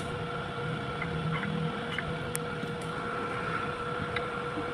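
Lathe running with a steady hum and whine, with a few light ticks.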